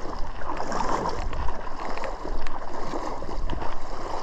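Water sloshing and splashing continuously, irregular and without a steady rhythm.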